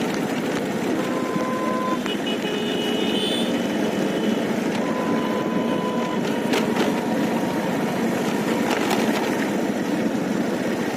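Steady road traffic noise, vehicle engines running, with a few faint short tones now and then.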